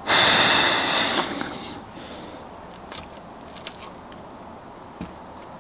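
Hands-on work on a brake caliper piston: a loud rushing hiss for about a second and a half, then quieter scraping with a few short metal clicks.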